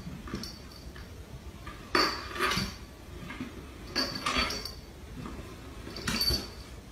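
A cat bumping down wooden stair treads one step at a time: three short clattering knocks about two seconds apart, each a quick double knock.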